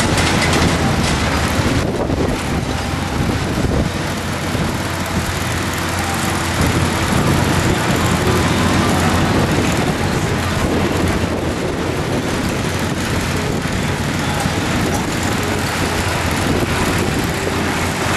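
Caterpillar kiddie roller coaster train running along its steel track, a steady loud rumble with no clear pitch.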